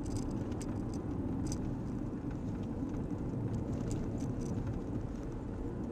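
Steady road and engine noise of a car driving, heard from inside the cabin through a dashcam's microphone, with a few faint ticks.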